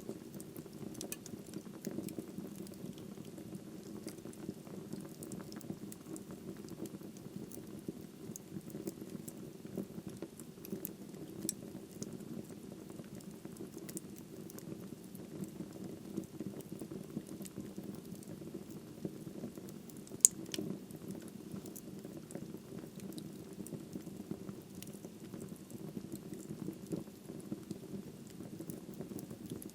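Wood fire burning in a fireplace: a steady low rush of flame with scattered crackles and pops from the burning wood, and one sharp, louder pop about two-thirds of the way through.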